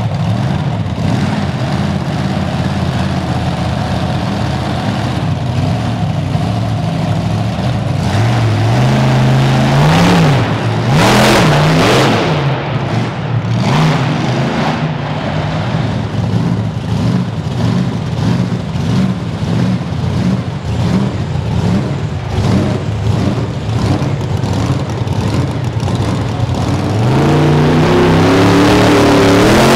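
Monster truck engines running and revving hard. The pitch rises and falls in quick throttle blips about ten to twelve seconds in, and climbs in one long rev near the end.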